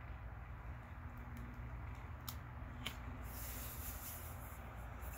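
Faint plastic clicks and rubbing as a ring light is turned by hand and fitted onto its stand, over a steady low hum.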